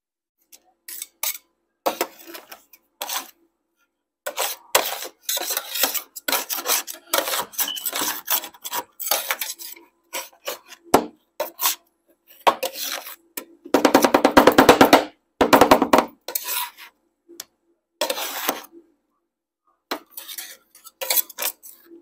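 Metal spatulas chopping and scraping ice cream mixture on a stainless steel cold plate: runs of quick clinks and scrapes, with a fast burst of rapid chopping strokes just past the middle.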